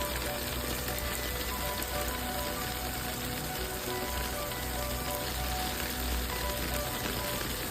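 Background music with short sustained notes, laid over a steady, dense hiss like rain or frying.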